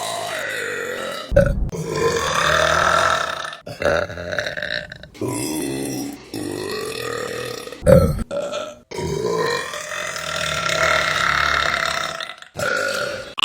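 A run of long, drawn-out burps by different women, about six in a row, each cut off abruptly where the next begins.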